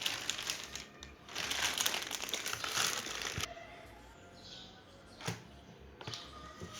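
Packaging crinkling as the laptop charger is handled, busy for about three and a half seconds, then quieter, with a single sharp click about five seconds in.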